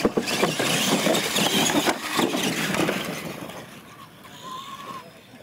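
Two R/C monster trucks racing over wooden jump ramps on dirt: motors and tyres running, with several knocks as they land. The noise falls away after about three seconds as the trucks finish and slow down.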